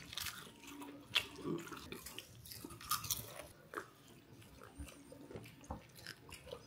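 Close-up mouth sounds of a person chewing a mouthful of rice, with scattered small clicks, then sipping and swallowing from a steel tumbler.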